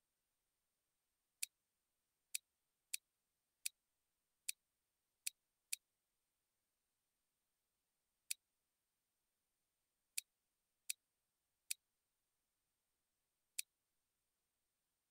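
Computer mouse button clicking: twelve single, sharp clicks at uneven intervals, with a longer pause in the middle, over near silence.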